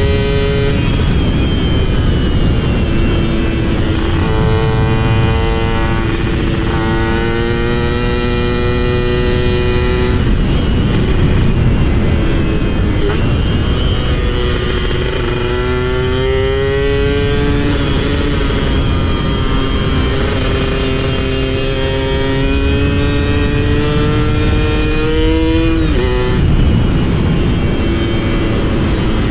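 Two-stroke motorcycle engine under way, its pitch climbing steadily over several seconds and then dropping back, about four times, over a constant low rumble.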